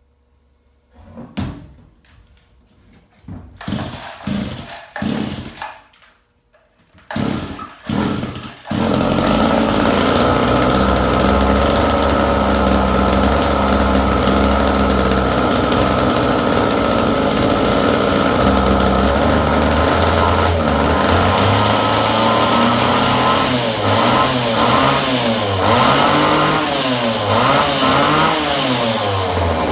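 Two-stroke chainsaw engine, bar and chain removed, pull-started after a carburetor cleaning: a few short sputtering bursts, then it starts about nine seconds in and runs steadily, its revs rising and falling near the end.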